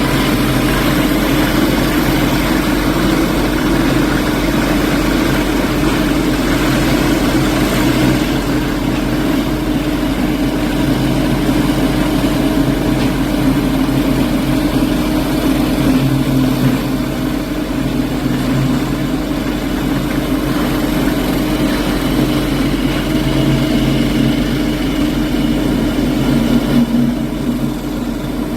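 Construction machinery engine running steadily at a constant pitch, with a steady hum.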